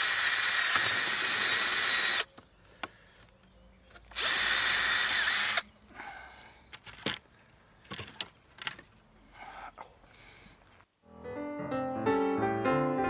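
Power drill boring holes through a wooden lath: one steady run that stops about two seconds in, then a second run of about a second and a half, with faint knocks and handling clicks between. Piano music comes in near the end.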